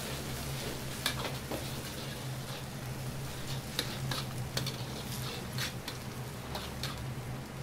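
Metal ladle clinking and scraping against a wok while a sauce simmers and sizzles, with a steady kitchen hum underneath; the sauce is being thickened with starch slurry. Several sharp clinks come at uneven intervals, most of them in the second half.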